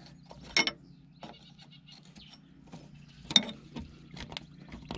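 Scattered metallic clicks and clinks of a wrench working a hydraulic fitting nut loose on a grader's cylinder line, with two louder clanks, one about half a second in and one past three seconds.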